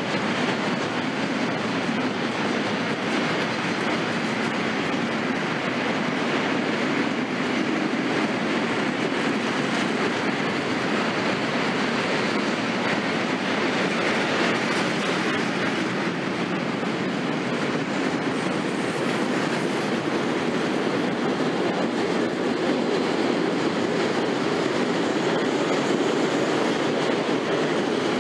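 A freight train of empty double-deck car-transporter wagons rolling past, making a steady rolling and rattling noise of wheels on the rails that does not let up.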